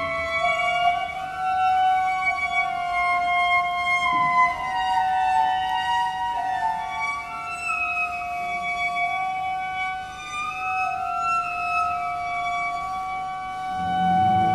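Slow, haunting cello music: long held high notes with slowly moving lines above them, and a low note coming in near the end.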